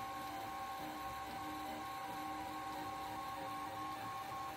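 FDM 3D printer running a print: the stepper motors whine as the head moves, one steady tone with a second one chopping on and off several times a second, over a faint fan hum.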